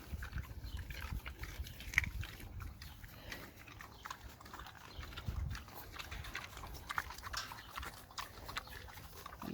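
A pig chewing and smacking on watermelon: a run of small irregular wet clicks and crunches, with one sharper click about two seconds in.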